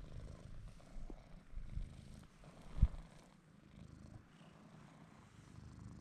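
Domestic cat purring close to the microphone, a low continuous rumble, with one soft thump about three seconds in.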